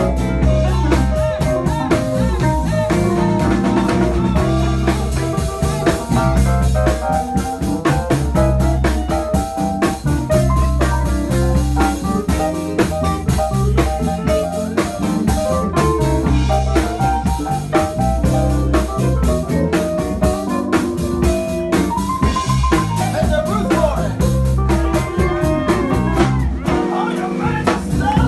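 Live blues band playing an instrumental break, the keyboard taking the lead over electric bass and drum kit.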